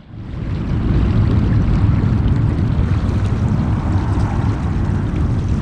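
Loud, steady rushing noise that starts suddenly at the beginning, heaviest at the low end: wind buffeting the microphone, with the flow of a mountain river.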